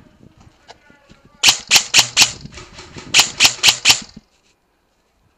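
VFC HK416 airsoft electric gun (AEG) fired shot by shot: two quick strings of four sharp shots, about four a second, with a short pause between them.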